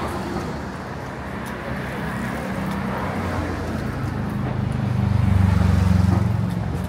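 Street traffic noise with a motor vehicle's engine drawing close and passing, its low hum growing louder to a peak about five to six seconds in, then fading.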